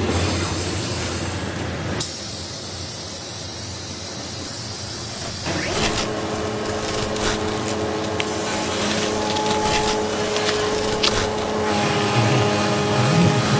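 Steady hiss with scattered clicks, then a Bandag tyre buffing machine starting about six seconds in and running with a steady hum as it spins a truck tyre for buffing off the worn tread.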